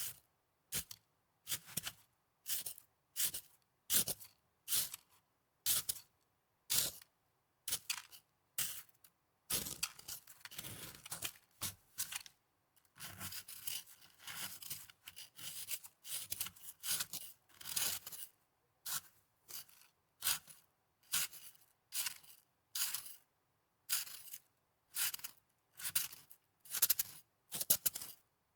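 Snow being crunched and scraped in short, crisp strokes, a little more than one a second, with a busier run of close-packed strokes through the middle.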